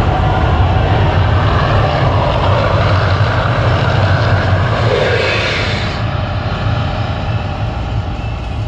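Loud, deep rumbling roar of the Mirage volcano eruption show, with a rushing sound from the gas fire jets that cuts off about six seconds in as the flames go out; the rumble then slowly fades.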